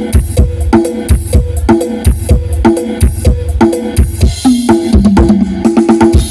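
Drum-heavy music played loud through a large PA speaker rig, run to warm up the speaker drivers. A fast, steady kick-drum beat with a pitched tom on each hit, and a quick run of lower drum hits about five seconds in.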